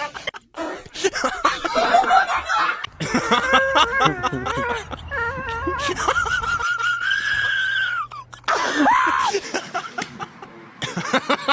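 People laughing and snickering, with a long, steady high-pitched tone lasting about two seconds midway through.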